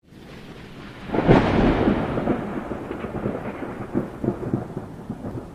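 A thunderclap about a second in, rumbling and crackling as it slowly dies away over a steady hiss of rain.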